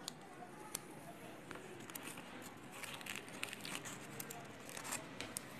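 Faint crinkling and rubbing of a piece of polystyrene foam being handled, with scattered light clicks and a short cluster of crackles about three seconds in.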